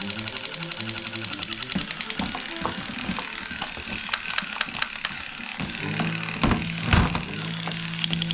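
Hard plastic toy guns clicking and knocking as they are handled and set down in a cardboard box, with one louder thud about seven seconds in. Background music with a fast, even beat is heard at the start and comes back near the end.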